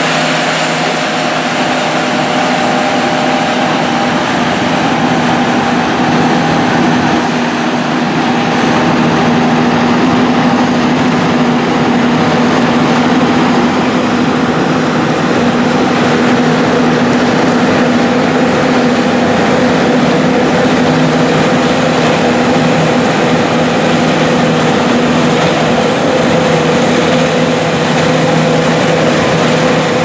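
John Deere S690 combines running steadily under load while harvesting wheat: a constant drone of diesel engine and threshing machinery with several steady hum tones.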